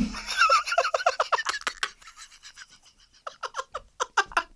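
A man laughing hard: a run of quick, pulsed laughs that fades about two seconds in, then a second run of laughs near the end.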